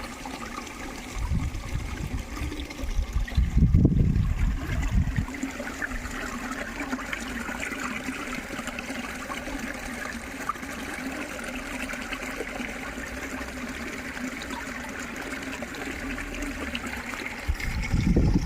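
Water trickling and babbling steadily. Low gusts of wind rumble on the microphone during the first five seconds or so.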